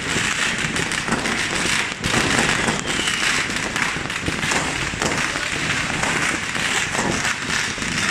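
Many fireworks and firecrackers going off at once: a dense, unbroken crackle of small bangs.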